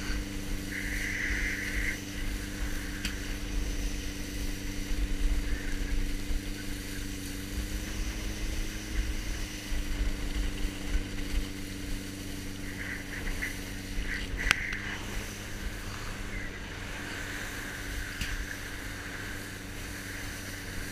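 Steady hum of the towing motorboat's engine heard from behind on the tow line, with low wind rumble on the microphone and the hiss of water rushing under the board. One sharp click comes about fourteen and a half seconds in.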